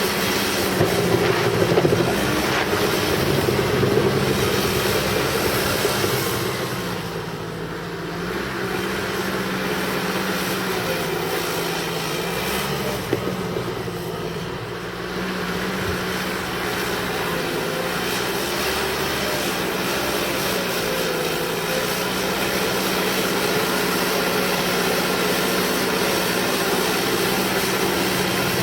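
Cat D5K bulldozer's diesel engine running steadily while dozing in mud. It eases off twice, about a quarter and half way through, before picking up again.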